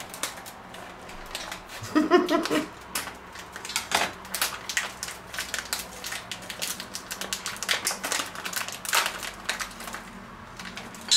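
A bag of semolina being cut and torn open: irregular crinkling and rustling of the packaging with many sharp little clicks throughout.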